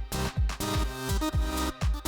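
Background electronic dance music with a steady, driving beat and a deep kick drum.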